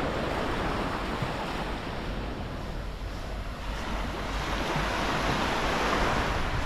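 Mediterranean sea waves breaking and washing up the beach, one surge near the start and another building over the second half.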